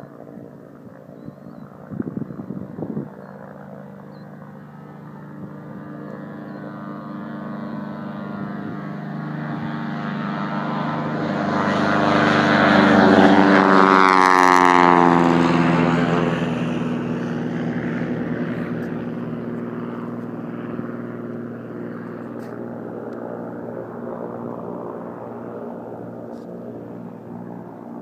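Goodyear blimp's propeller engines droning as it flies low past, growing louder to a peak about halfway through, then fading as the pitch drops once it has gone by.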